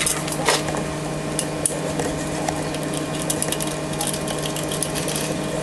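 Small metal clicks and scrapes of a nut being fitted by hand onto a round-head bolt through a golf cart's side sill plate, over a steady hum.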